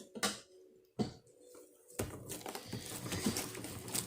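Homemade slime being squished and worked in the hands: two sharp pops near the start, then from about halfway a continuous run of small wet crackles and clicks.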